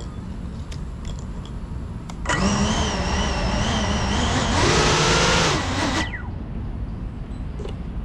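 Small electric motors of an FPV drone whining, with several steady pitches at once. The whine starts abruptly about two seconds in, rises in pitch near the end and cuts off suddenly about six seconds in, over a steady low rumble.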